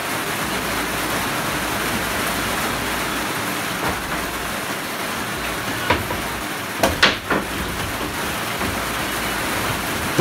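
Steady rain on the school bus, with a few wooden knocks as plywood subfloor sheets are handled and set down. The loudest knocks come in a quick cluster about seven seconds in.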